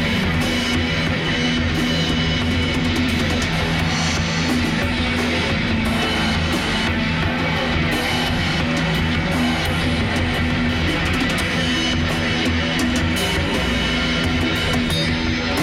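Instrumental heavy metal jam: electric guitar and a drum kit playing together, loud and continuous, with held low guitar notes under a steady wash of cymbals.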